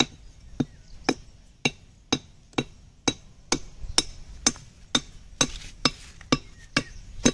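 A harvested jackfruit being struck over and over, evenly spaced sharp knocks about two a second, done to make the fruit ripen faster.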